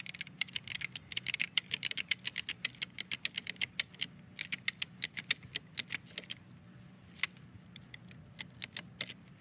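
High-lift jack being pumped to raise a fallen tree trunk: a rapid run of sharp metal clacks as the jack's climbing pins catch on the steel bar. After about six seconds the clacks thin out to a few scattered ones.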